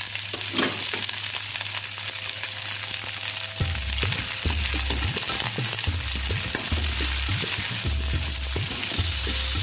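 Potatoes and onions sizzling in hot mustard oil in a metal pan, with a steady frying hiss. About a third of the way in, a perforated ladle starts stirring them, scraping and knocking against the pan.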